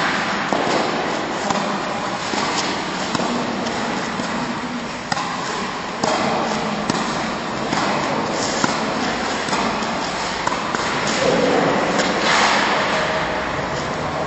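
Tennis ball struck back and forth in a volley-to-volley rally, sharp racket-on-ball pocks ringing in a large hall, over a steady rushing background noise.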